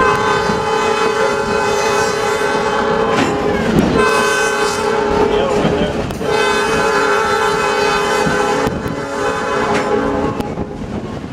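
Train horn sounding three long blasts of two to three seconds each, with short breaks between, over the rumble of the slowly moving excursion train.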